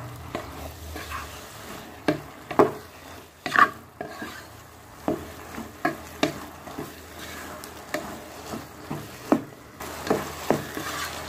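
Spatula stirring okra masala fry in a pan, scraping and knocking against the pan at uneven intervals of about a second, over a faint sizzle of the frying vegetables.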